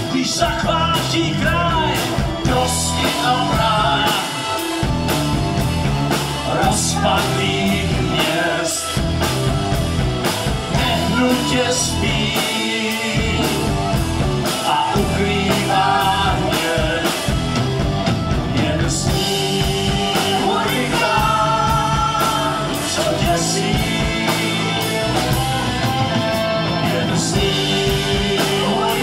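Rock music with singing and a steady drum beat.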